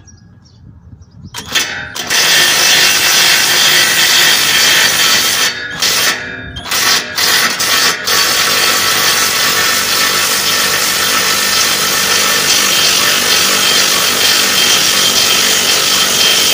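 Cordless impact driver running, spinning a bolt out of the rear suspension. It starts about a second and a half in, stops and restarts a few times between about five and eight seconds, then runs steadily.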